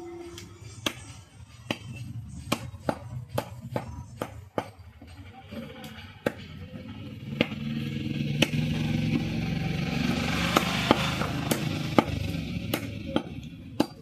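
Knife chopping chicken on a wooden chopping block: about twenty sharp chops, uneven in spacing. A steady rushing noise swells up about halfway through and fades near the end.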